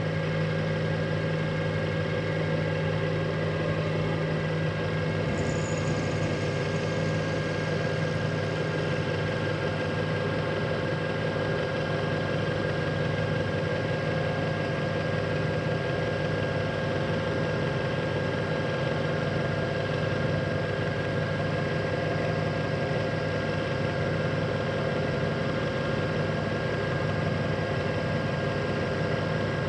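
Bridgeport milling machine running a Dorian right-angle attachment while its end mill cuts a slot in the end of a metal bar: a steady machine hum with a constant higher tone, unchanging throughout.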